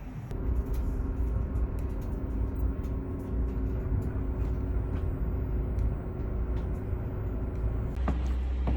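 Steady low rumble of a vehicle running, with a faint steady hum and a few light clicks; the rumble shifts slightly near the end.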